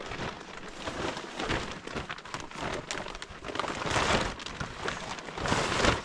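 Hard rain falling: a dense hiss full of irregular sharp taps.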